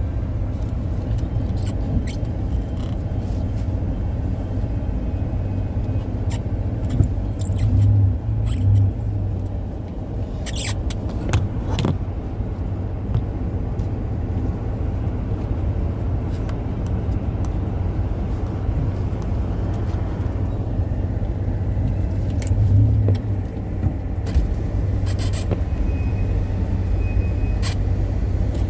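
Steady low rumble of a car, heard from inside the cabin, with a few scattered clicks and knocks.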